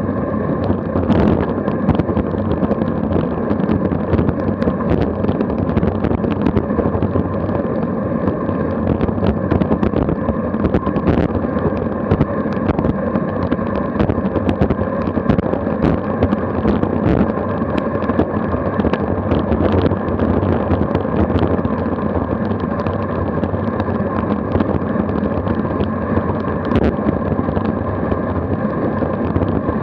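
Wind rushing over a bicycle-mounted action camera's microphone on a fast downhill at about 25–30 mph, mixed with tyre and road noise. Frequent small clicks and rattles come from bumps in the road.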